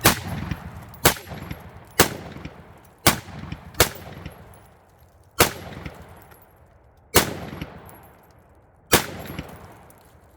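Eight single gunshots, fired one at a time about one to two seconds apart, each trailing off in an echo. They are shots fired to blast off a padlock that has seized shut.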